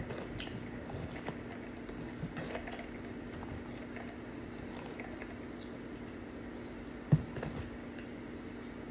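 Close-up eating sounds: chewing and small clicks and rustles from handling the food, over a low steady hum. A single sharp thump comes about seven seconds in.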